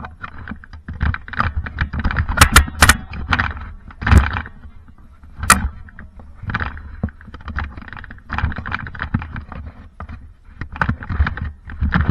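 Irregular scuffs, thumps and knocks of movement and handling during a Nerf game, with a few sharp clicks.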